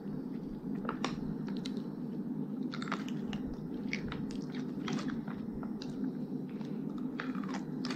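A child biting into and chewing a large chamoy-coated dill pickle: scattered short crunches and mouth smacks over a steady low background noise.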